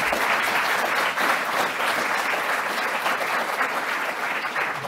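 Audience applauding steadily in a lecture room, easing off slightly near the end.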